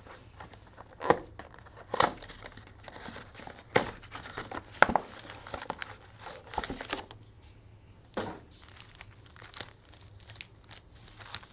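A cardboard trading-card mega box being torn open, with several sharp tearing snaps, followed by foil card packs crinkling as they are pulled out and handled.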